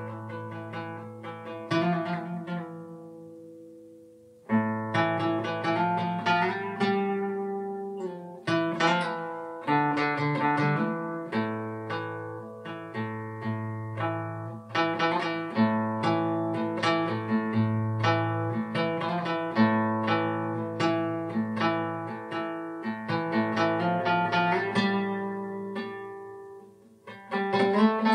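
Guitar playing an instrumental piece: a plucked chord rings and fades away over the first few seconds, then after a short pause, picked notes and chords carry on steadily, falling off briefly near the end before a new chord is struck.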